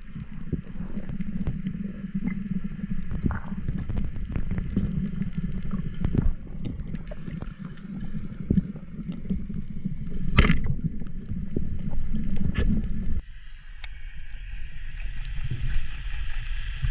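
Low rumble and wash of a boat on the water, with wind on the microphone and a few sharp knocks; the sound changes abruptly about thirteen seconds in.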